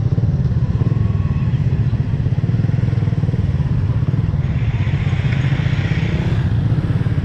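Motorcycle engine running steadily, heard from the rider's own bike among other motorcycles in traffic. A rushing hiss swells for about two seconds midway.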